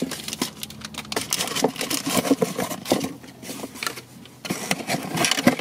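Cardboard box flaps and a card-backed plastic retail pack being handled: irregular crinkling, rustling and light tapping.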